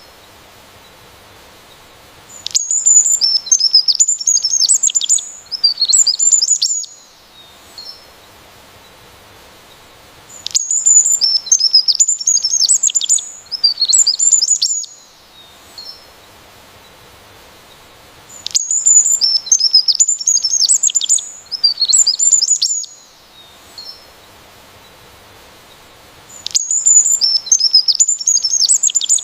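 A songbird singing in bouts of rapid, high chirping notes, each about four seconds long, that recur roughly every eight seconds. The same phrase repeats almost identically each time.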